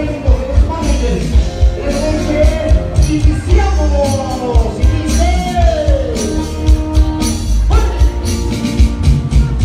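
Live band music played loud over a sound system: a steady bass and drum beat with a singing voice, and a melody that slides up and down in pitch around the middle.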